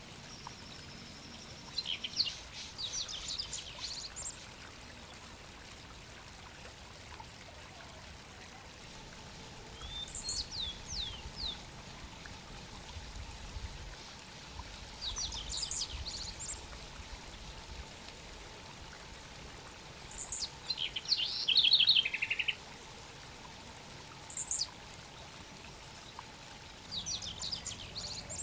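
Wild birds calling in about six scattered bouts of high, quick chirps, trills and short sliding whistles, the loudest a little past the middle, over a steady faint hiss.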